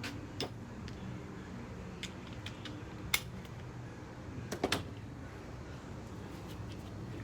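Scattered sharp clicks and knocks of tools and parts being handled during a spark-plug and plug-wire change, over a steady low hum. The loudest click comes about three seconds in, with a quick cluster of clicks a little later.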